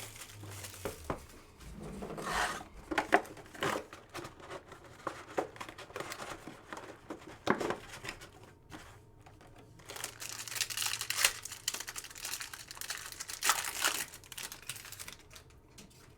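Panini Prizm hobby card packs being torn open by hand: plastic wrappers crinkling and tearing in irregular bursts, with small clicks and rustles of the cards being handled. The busiest stretch of tearing and crinkling comes about two-thirds of the way through.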